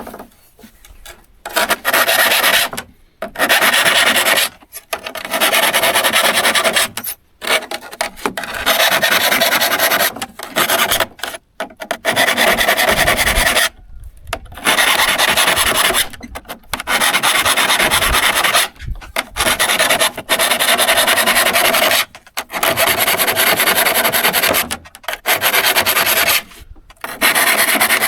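Hand file rasping across the steel teeth of a hand saw during sharpening: long strokes of a second or two each, with short pauses between them.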